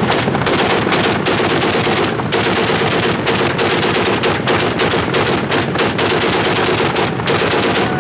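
Heavy machine gun mounted on the back of a pickup truck firing long automatic bursts of rapid shots, about eight a second, with short breaks about half a second in and just after two seconds.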